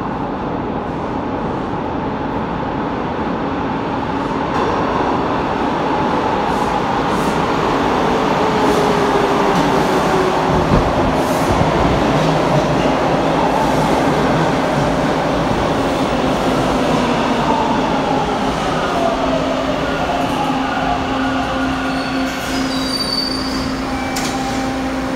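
A Bombardier T1 subway train pulls into the station and brakes to a stop. The rumble of its wheels on the rails swells to a peak about halfway and then eases off, while the motor whine glides down in pitch as the train slows. Thin high squeals come near the end, and a steady hum remains once it has stopped.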